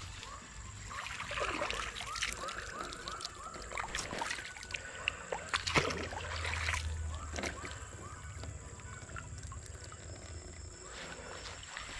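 Hand scoop net swept through shallow pond water, sloshing and splashing, while netting baby shrimp and small fry, with a few sharper splashes midway. A quick series of repeated chirps sounds in the background during the first few seconds.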